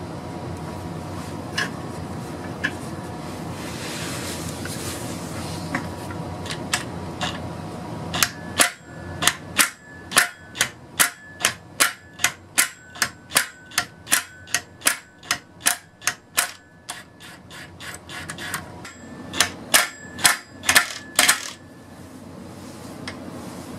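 Steady background noise with a faint hum, then a long run of sharp metallic clicks, about two a second, each with a short ring. The clicks pause briefly and resume for a few more near the end.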